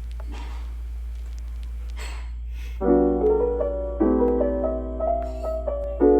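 Piano music that starts a little under three seconds in, with chords struck about once a second. Before it there is only a steady low hum and a couple of soft swishes.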